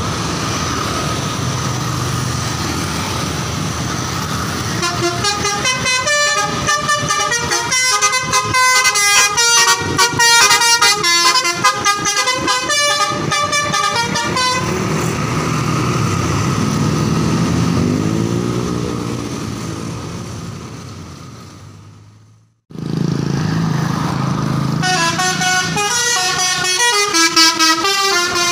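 Bus telolet basuri horns playing quick multi-note tunes over engine noise. One tune starts about five seconds in and runs for nearly ten seconds. Engine sound follows and fades out at a cut, and another horn tune starts near the end.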